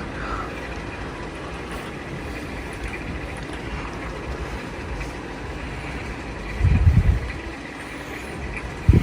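Minka Aire Supra ceiling fan running steadily, a whooshing rumble of moving air. A stronger low rumble lasts about half a second around seven seconds in, with another brief one near the end.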